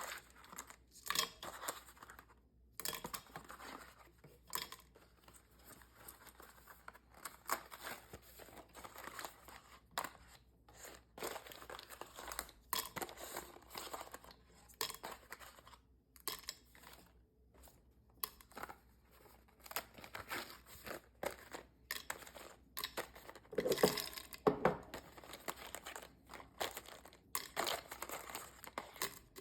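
Packaging crinkling and rustling as it is handled, with small tears and light knocks coming irregularly, a busier stretch about 24 seconds in.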